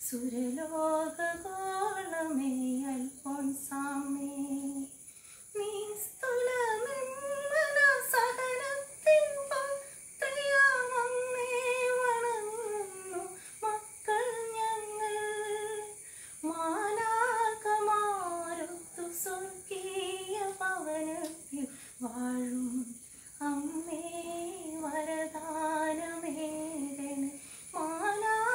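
A woman singing unaccompanied, a Malayalam devotional song to St. Alphonsa, in long held phrases that slide up and down in pitch, with short pauses for breath.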